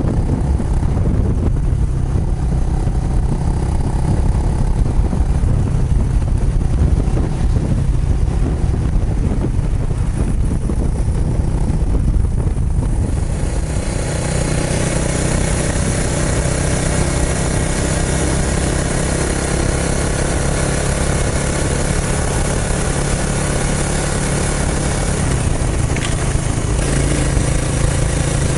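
Kawasaki Estrella's single-cylinder engine running through an aftermarket Yamato muffler, with a heavy low rumble. About halfway through the sound turns brighter, with a steady hiss over the engine.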